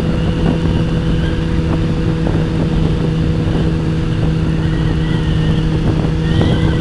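Motorcycle engine running at a steady cruising speed: an even, unchanging engine note over the rumble of wind and road noise.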